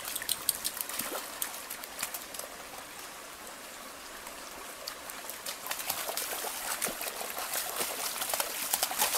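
Shallow spring creek trickling while a Welsh springer spaniel puppy wades through it, its paws splashing. The splashing picks up and gets louder over the last few seconds.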